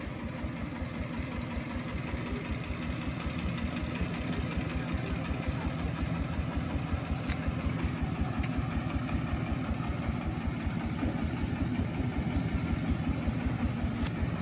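Single-cylinder diesel engine of a homemade farm vehicle idling, a steady, even beat of firing pulses.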